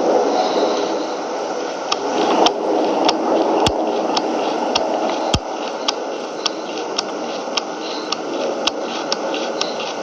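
Airbus A400M's four turboprop engines heard as a steady rushing noise during a flyover, with scattered sharp clicks throughout and two louder clicks near the middle.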